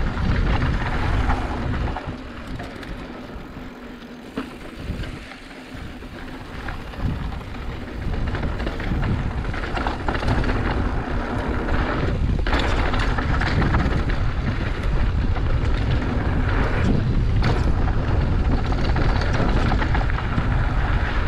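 Mountain bike descending a dry dirt trail: wind rushing over the microphone and tyres rolling on loose dirt, with a couple of knocks from bumps in the trail. Quieter for a few seconds near the start, then steady and louder as speed picks up.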